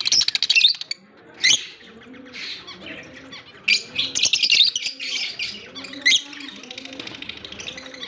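A group of lovebirds chattering in shrill, high chirps and squawks that come in bursts, loudest at the start and again around four to five seconds in.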